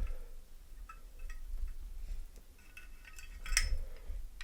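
Light metallic clicks and clinks of a Leatherman multi-tool being handled, with one sharper click about three and a half seconds in.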